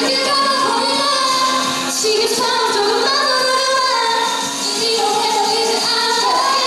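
Upbeat pop song sung by several young women into handheld microphones over a backing track.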